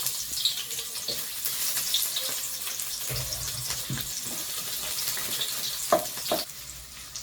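Onion sizzling in hot cooking oil in a pan, a steady hiss that eases slightly near the end. There are two short knocks about six seconds in.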